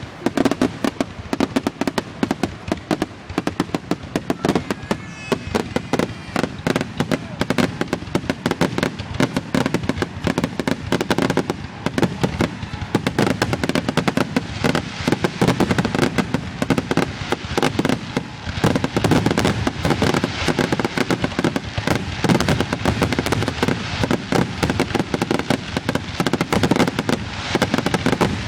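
Fireworks going off in a continuous rapid barrage of bangs and crackles, many per second without a pause.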